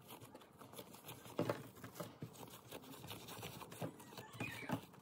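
Hands rolling up a sheet of soft yeast dough spread with cinnamon sugar on a wooden table: faint sticky pats and small peeling, scraping noises, with a couple of louder taps about a second and a half in and near the end.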